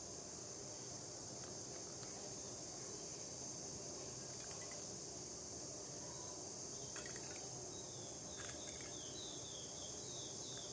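A few faint clicks of Rubik's cube layers being turned, over a steady, faint, high-pitched insect-like chirring hiss. A short run of small, quick, high chirps comes near the end.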